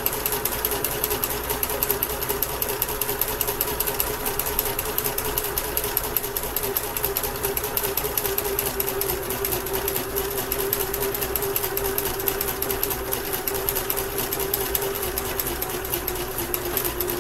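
Kenmore entry-level sewing machine running steadily under the foot pedal: a motor hum with a fast, even needle clatter as it stitches along the edge of cross stitch fabric to keep it from fraying.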